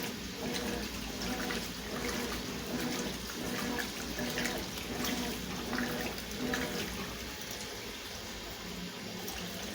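Consul CWS 12 washing machine washing a load of sheets and towels: water sloshing in the tub, with a low motor hum that comes and goes.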